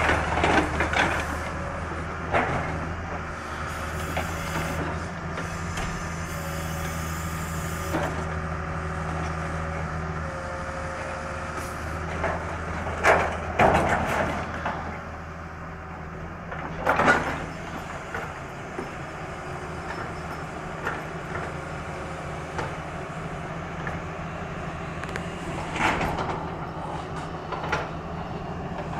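CAT hydraulic excavator's diesel engine running steadily while its demolition jaw breaks up a building, with crashes and crunches of falling debris and metal sheeting; the loudest crashes come a little before halfway through and again a few seconds later.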